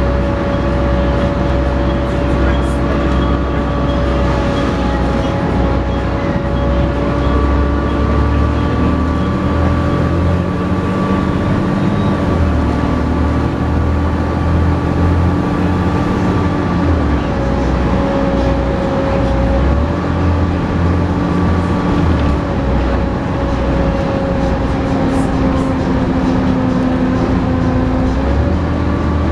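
Volvo B7TL double-decker bus's 7-litre six-cylinder diesel running hard under load, with a steady vacuum-cleaner-like whine, the bus-enthusiast 'hoover'. Its drone and tones shift in pitch in steps a few times as the bus is driven.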